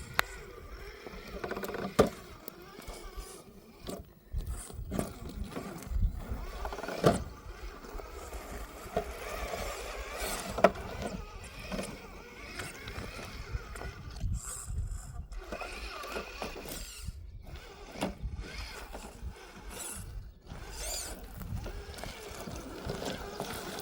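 Axial SCX10 III electric RC rock crawler climbing over stones: its motor and geared drivetrain whine in swells as the throttle comes and goes, with sharp knocks of chassis and tyres against rock, the loudest about 2, 7 and 10.7 seconds in.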